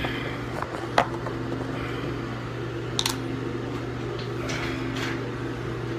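Steady mechanical hum of a small-room fan, with two sharp clicks about one and three seconds in as the phone is being propped up.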